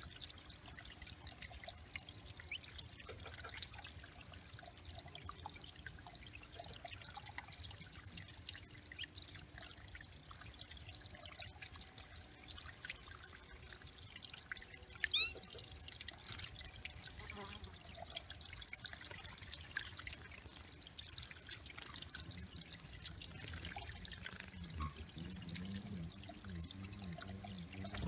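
Water trickling and dripping steadily into a backyard bird pond, with a single short high chirp about halfway through. A lower burbling of water joins in over the last few seconds.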